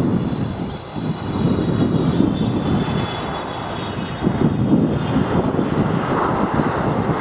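Boeing 777F freighter's GE90 jet engines running through touchdown and the landing rollout: a steady loud rumble with a faint high whine above it.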